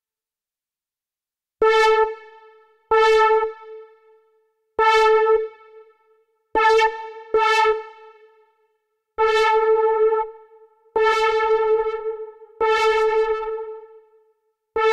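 Cherry Audio Octave Cat software synthesizer playing a bright lead sound: one note at the same pitch struck eight times at uneven intervals, each fading out over about a second. Just before the end a louder, fuller sound with several pitches begins.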